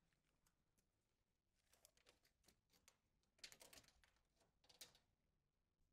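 Near silence, with a few faint clicks and rustles of small objects being handled, clustered around the middle.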